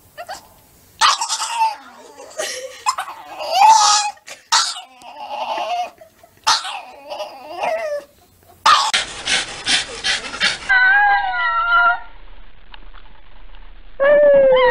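Dogs vocalising: a pug's short whines and yowls, then a wavering howl-like call, and near the end a small white long-haired dog starting to howl.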